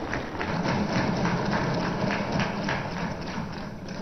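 Assembly members thumping their desks in dense, irregular knocks, the customary applause in an Indian legislature, over a murmur from the chamber.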